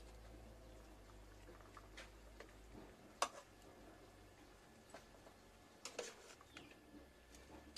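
A metal ladle knocking a few times against a cooking pot as chicken pieces are lifted out of the boiling soup; sparse, sharp clicks, the loudest about three seconds in.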